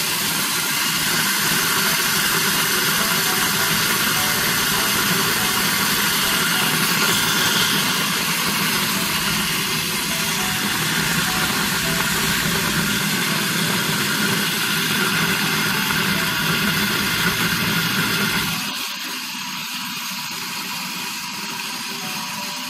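Electric grinder running, its blade milling seeds and grain into a fine powder, a steady loud motor whir with grinding noise. About eighteen seconds in it cuts off, leaving a quieter steady sound.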